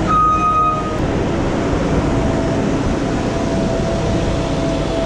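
Skid steer loader running close by, lifting a bucket of manure over a manure spreader; a steady engine din, with a brief high whine in the first second.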